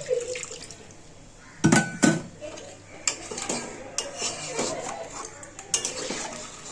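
A metal spoon or spatula clinking and scraping against a cooking pot while stirring crab curry, in several separate knocks.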